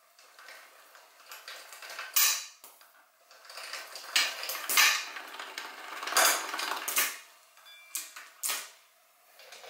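Motorcycle drive chain clinking and rattling in repeated bursts as its loose metal links are pulled off and handled.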